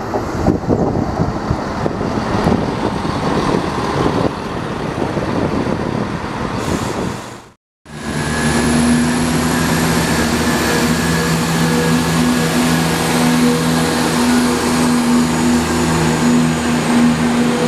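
A ScotRail Class 170 Turbostar diesel multiple unit runs along the platform with a rough, rumbling rush of noise. After a brief cut a little under halfway through, a diesel multiple unit stands at the platform with its engine idling: a steady hum of several low, unchanging tones.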